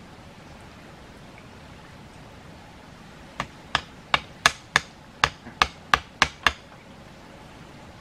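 About ten hammer blows on a bamboo stake in quick succession, roughly three a second, each a sharp knock with a short ringing tail. They begin about three seconds in.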